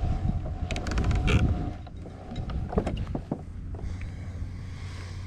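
Wind buffeting the microphone on a small fishing boat, with a steady low rumble, a few knocks and clicks, and a thin steady hum that stops about three seconds in.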